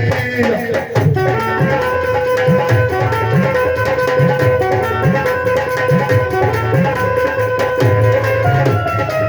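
Instrumental interlude of Punjabi folk devotional music: a hand drum plays a steady rhythm of low bass strokes that slide up in pitch, under a held, sustained melody line.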